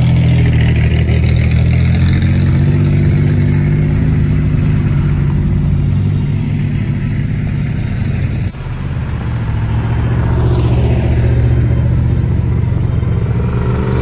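Car engine running at steady revs while driving, with a short dip in level about eight and a half seconds in.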